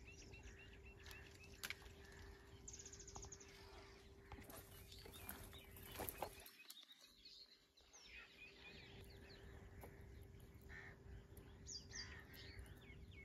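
Near silence: faint outdoor ambience with a few scattered bird chirps, loudest near the end, and a couple of light clicks.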